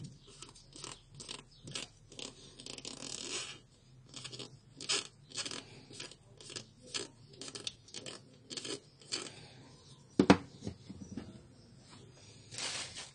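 An HP 17A plastic toner cartridge being handled, making a run of short, noisy plastic scrapes and rattles about two a second. About ten seconds in there is a sharp knock as it is set down on a wooden desk, and a last short rustle near the end.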